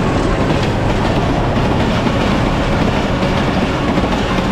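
Passenger train coaches rolling past on the rails with a steady rumble and repeated wheel clicks.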